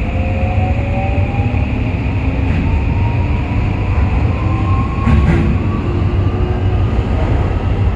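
Toei 5500 series subway train with a Mitsubishi full-SiC VVVF inverter, heard from inside the car: the motor whine climbs steadily in pitch as the train accelerates. Under it is a loud, steady rumble of wheels on rail, with a couple of short knocks from the track.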